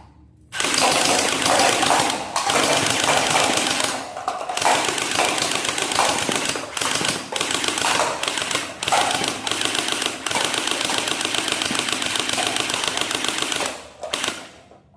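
Toy machine gun firing a long rapid burst of repeated clicks, with a couple of short breaks early on, stopping about a second before the end.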